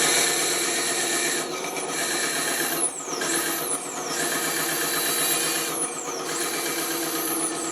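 Bandsaw running and cutting through wood: a steady rasping cut, with a high whine that slides down in pitch several times.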